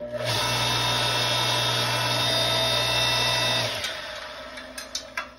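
Electric 5-ton log splitter's motor and hydraulic pump switching on abruptly and running steadily as the ram bends a steel rod, then shutting off about four seconds in and spinning down with a falling pitch. A few sharp clicks follow near the end.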